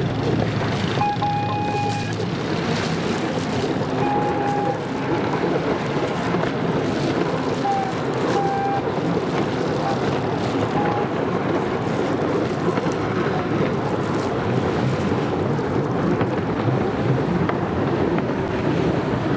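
Racing jet skis running out on the water, heard from the shore under steady wind noise on the microphone and the wash of small waves. A few short high-pitched tones come and go in the first half.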